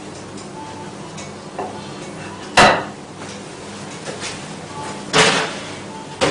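A small oven dish being taken out of a hot oven and handled: two loud clunks about two and a half seconds apart, with another just at the end, over a faint steady hum.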